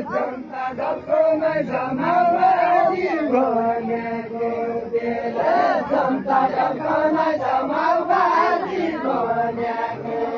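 A crowd of villagers singing together in a chant-like Nepali folk song, many voices on held notes that slide up and down.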